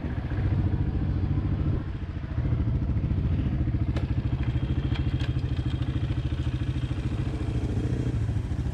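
Dirt bike engine running at low trail speed, heard from the rider's helmet: it eases off briefly about two seconds in, then pulls on steadily with a fast, even beat. A few sharp knocks come near the middle as the bike goes over the trail.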